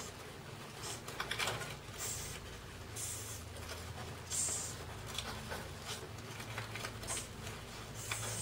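Cardboard egg-crate flats rustling and scraping as a hand rummages through them inside a glass tank, with several short, high-pitched bursts.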